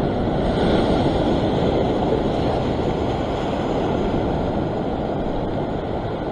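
Ocean surf washing over and around a rock ledge: a steady rushing noise that swells slightly about a second in.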